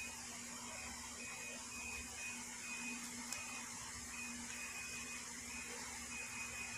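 Faint steady hiss and hum of background noise, with a faint high whine that keeps breaking off and coming back, and one small click about three seconds in.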